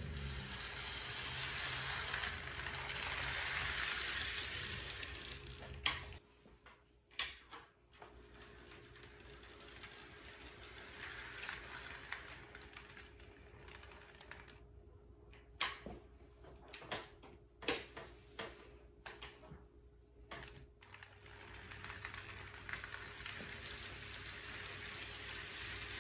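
AHM model of Illinois Central steam locomotive No. 382 running on the layout with its train: a whirring rattle of motor and wheels that grows louder as it passes close over the first few seconds. It then drops away to scattered sharp clicks through the middle, and the running noise swells again near the end.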